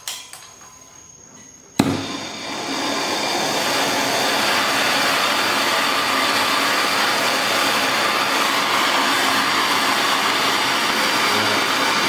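MAP gas hand torch lit with a sharp click about two seconds in, then burning with a steady hiss.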